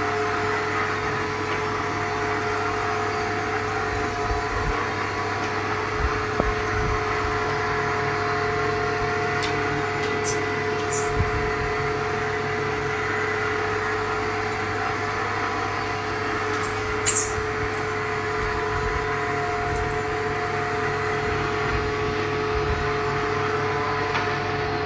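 Steady machine hum with several held tones, broken only by a few faint clicks.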